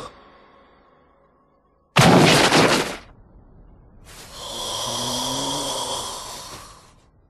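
Anime fight sound effects: a sudden loud rush of noise about two seconds in that lasts about a second. Then a longer rushing sound with a faint hum swells up and fades away near the end.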